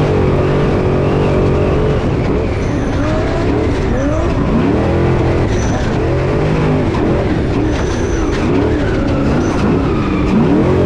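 A Class 6100 off-road race truck's engine at race pace, heard from inside the cab. The revs rise and fall every second or two as the throttle is worked, over a constant rush of noise.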